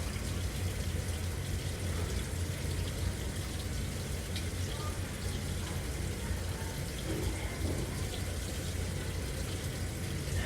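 AQUA MCW-C70A coin-operated 7 kg washing machine filling with water for a hot-water wash: a steady rush of running water with a low hum underneath.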